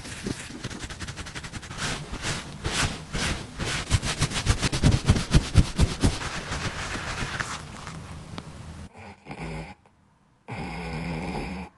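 Quick, repeated rubbing strokes of a gloved hand over a dog's fur, a fast run of brushing scratches that grows loudest midway, then fades. Near the end a short, steady sound follows a brief lull.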